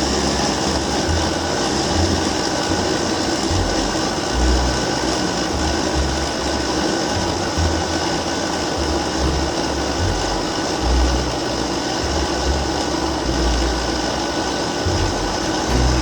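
Small electric motor running steadily, with an even whirring hiss and an uneven low rumble beneath it.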